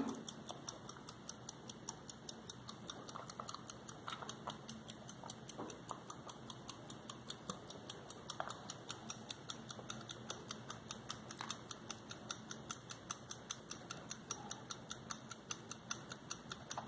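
Antique 1910 German automaton pocket watch ticking, a faint, rapid and even beat, with a few louder clicks from fingers handling the nickel case.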